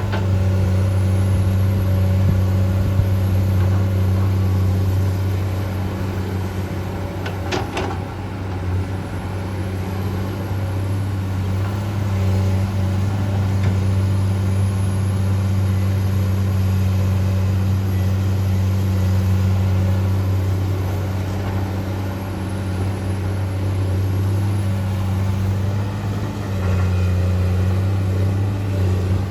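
Komatsu PC200-8 hydraulic excavator's six-cylinder diesel engine running steadily as the machine digs, its level swelling and easing a little with the work. A short knock sounds about seven and a half seconds in.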